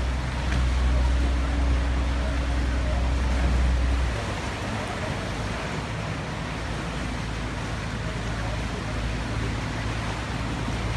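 Water taxi motorboat underway: engine rumble with the wash of water along the hull. The deep rumble drops away sharply about four seconds in, leaving a lighter steady engine and water noise.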